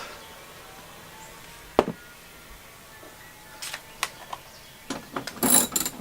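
Hand-tool work on a car's front bumper bolts: one sharp metal knock about two seconds in, then a run of light clicks and taps, and a short scraping rattle near the end.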